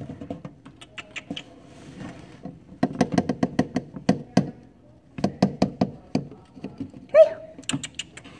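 Quick runs of light plastic clicks and taps, about seven a second, as a cricket carrier tube is tapped and knocked while held against driftwood in a reptile tank. The taps come in three bursts.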